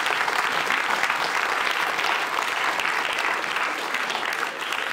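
Audience applauding, dense, steady clapping.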